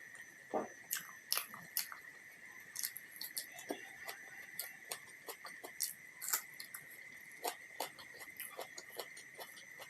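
Close-miked chewing and mouth sounds of someone eating a rice-and-curry meal: irregular wet clicks and smacks, several a second. A steady high-pitched whine runs underneath.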